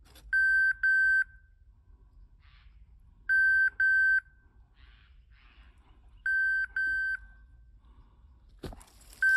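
Beeper collar on an English setter sounding in point mode: pairs of short, high electronic beeps about every three seconds, the signal that the dog is locked on point. A brief rustle or knock comes just before the last pair.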